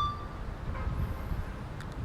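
Low, steady background rumble, with the ringing tail of a short electronic beep fading away in the first half-second.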